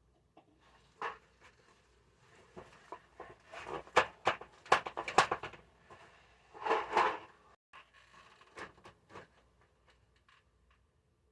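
Irregular knocks, clatters and scrapes, thickest and loudest in the middle, with a longer scraping rustle about seven seconds in.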